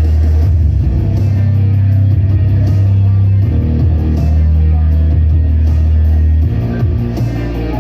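Rock music with electric guitar and a heavy, sustained bass line.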